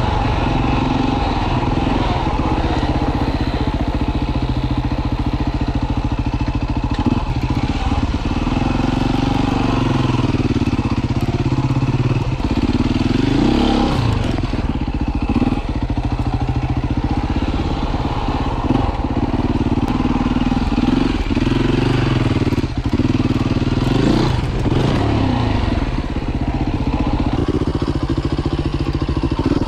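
Beta RR 450 four-stroke single-cylinder enduro engine under way, its pitch rising and falling over and over as the throttle is opened and closed. Now and then there is a short knock.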